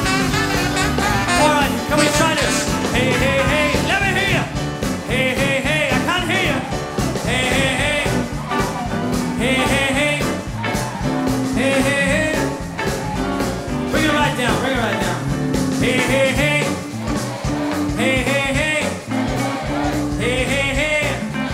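Swing band playing an upbeat number, with a high wavering phrase recurring about every two seconds over steady bass notes.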